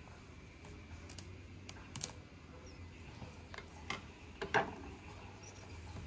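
Scissors snipping through the plastic shrink-wrap on a cardboard box, then the box being handled and slid on a table: a scatter of light clicks and taps, the loudest about four and a half seconds in.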